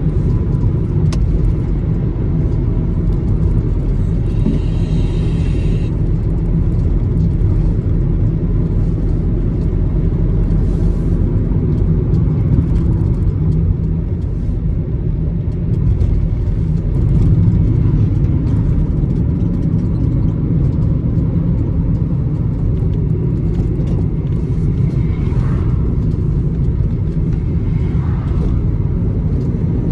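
Steady low rumble of engine and tyre road noise heard inside the cabin of a car driving at road speed.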